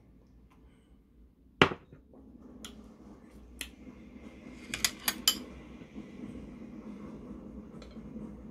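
Tableware clatter on a glass tabletop: one loud sharp clack as a glass mug is set down, then a few lighter ticks and a quick run of clicks from metal chopsticks against the dishes.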